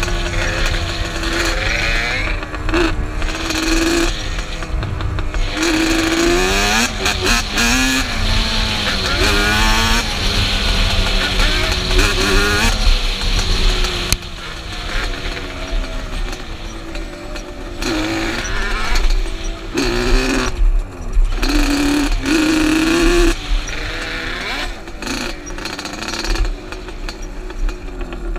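Yamaha Banshee's two-stroke parallel-twin engine running under way, its pitch rising and falling again and again as the throttle and gears change. Wind noise rumbles on the helmet-mounted microphone.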